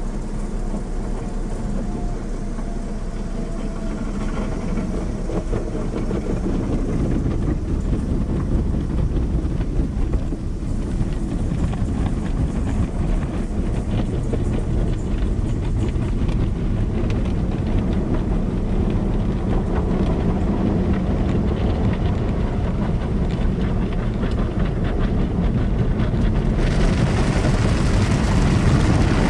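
Automatic car wash heard from inside the car: a steady rumble and swish of the rotating brushes and water against the body, growing a little louder, with a louder hiss joining near the end.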